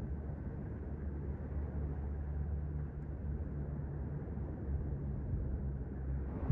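Sea surf on a beach: a steady low rumble with a droning hum underneath, and a wave starting to break right at the end.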